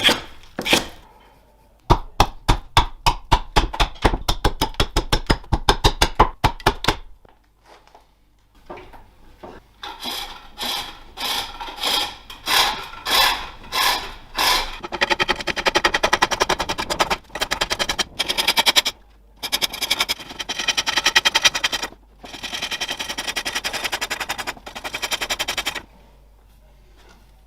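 A run of rapid, sharp knocks, about four a second, then green wood being cut on a foot-powered pole lathe: the tool shaves the spinning bowl in rhythmic bursts, one with each stroke of the treadle, stopping abruptly near the end.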